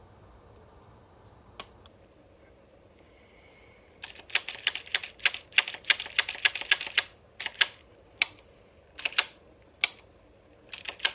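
A single sharp click, then about three seconds of rapid metallic clicking and clacking, then scattered clicks, some in quick pairs: a 1911 pistol's slide and action being worked by hand after oiling the rails.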